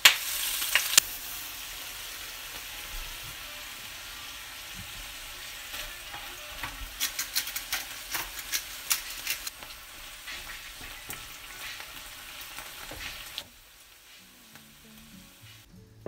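Choy sum hitting hot oil in a non-stick frying pan, with a loud burst of sizzling as it goes in, then a steady sizzle as it stir-fries. A run of sharp clicks comes in the middle, and the sizzling stops about two and a half seconds before the end.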